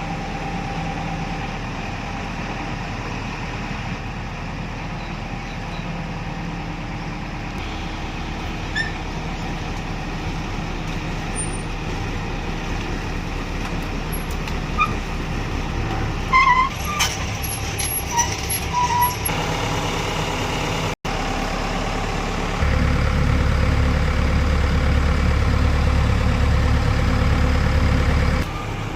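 Diesel engine of a SANY SY140C midi excavator running steadily, with scattered short metallic clicks and chirps in the middle. In the last six seconds or so it gets clearly louder and heavier, as the engine speed or load goes up.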